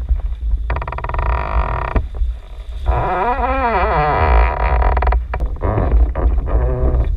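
Strong wind buffeting the camera's microphone in a constant low rumble, with a wavering tone that rises and falls about three seconds in.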